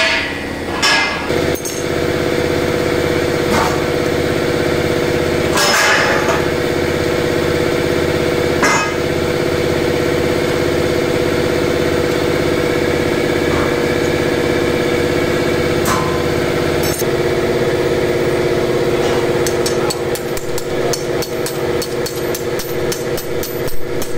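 A steady mechanical hum runs under the work, broken by a few sharp metallic knocks. Near the end it turns into a rapid run of clicks from a wrench tightening the nuts that hold a bearing roller's bracket.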